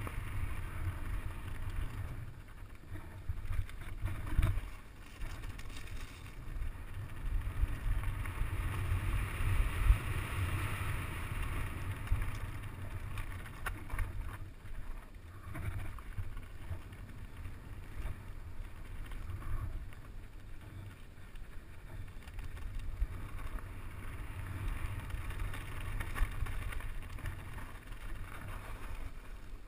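Mountain bike descending a dirt and gravel singletrack at speed: tyres rolling over soil and stones and the bike rattling, with sharp knocks over bumps, the loudest about ten seconds in. Wind buffets the microphone throughout as a low rumble.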